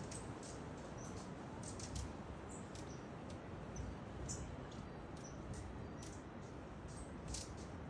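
Faint, short, high-pitched bird chirps and ticks, scattered irregularly over a steady low background noise.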